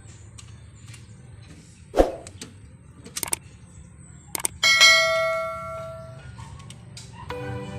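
Hand tools knocking on metal, then a loud metallic clang that rings and fades over about a second and a half. Soft music starts near the end.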